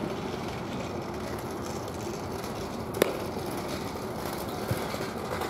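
A single sharp crack of a pitched baseball striking, about three seconds in, over a steady hum of distant traffic.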